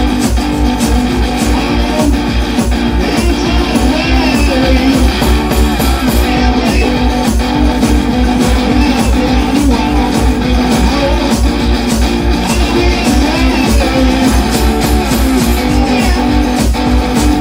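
Blues music led by guitar, with a bass line and a fast, steady beat throughout.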